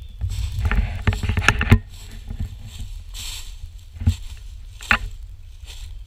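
Footsteps crunching through dry fallen leaves: a dense crackling run of steps in the first two seconds, then a few single crunches, over a low steady rumble.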